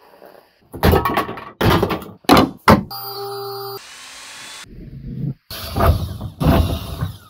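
A quick run of short, hard-cut workshop noises: several sharp knocks and scrapes, a brief steady motor whine in the middle, a hiss, then a longer stretch of loud grinding noise near the end.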